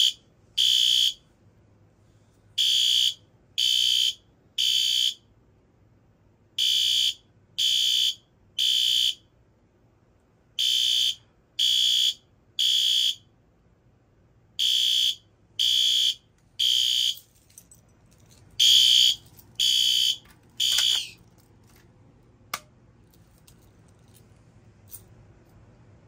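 Fire alarm horn strobe sounding in the temporal-3 evacuation pattern: three loud, high-pitched half-second blasts, a pause, then three more, over and over. The horn cuts off about three-quarters of the way through, and two faint clicks follow.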